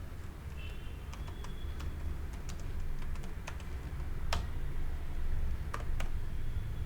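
Computer keyboard and mouse clicks, scattered and irregular, over a low steady hum.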